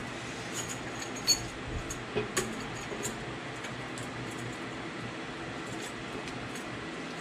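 Light metallic clicks and clinks as a differential carrier with its ring gear and bearings is lowered into a Ford 8.8 axle housing, most of them in the first three seconds, over a steady background hum.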